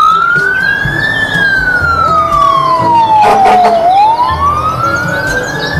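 Fire truck siren wailing. The tone climbs over about a second, falls slowly for nearly three seconds, then climbs again. A brief burst of other noise cuts in about halfway through.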